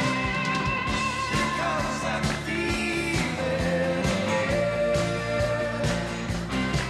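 Rock band playing: electric guitar, bass guitar and drums with keyboards, and a man singing lead.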